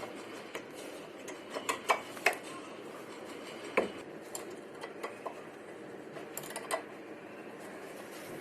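Brake pads and caliper parts being refitted: scattered light metallic clicks and clinks, a few sharper ones between about 2 and 4 seconds in.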